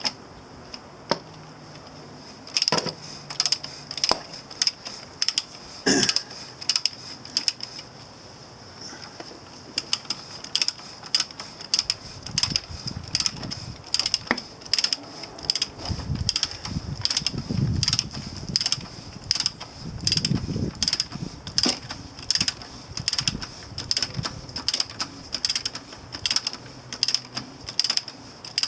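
Ratcheting torque wrench clicking as it is swung back and forth to tighten the oil filter cap to about 20 lb-ft. The clicks come sparsely at first, then steadily at a few a second from about a third of the way in, with a low rumble around the middle.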